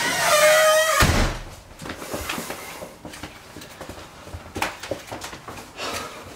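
A short high squeaky whine, then a door shutting with a heavy thud about a second in, followed by quieter clicks and shuffling.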